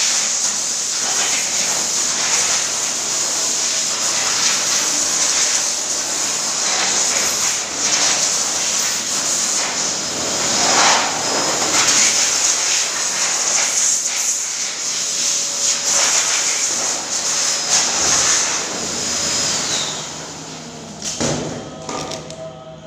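Electric blower motor running with a steady loud hiss and a high whine, switched off about twenty seconds in, the whine dropping as it winds down.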